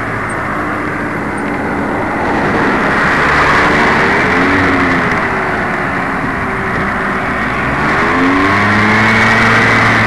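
Motorbike engine running under way with wind rushing over the microphone. The engine pitch rises and falls a couple of times as the throttle changes, then holds steady near the end.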